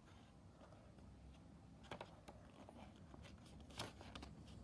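Near silence, with a few faint rustles and taps of a folded paper airplane being handled; the clearest come about two seconds in and near the end.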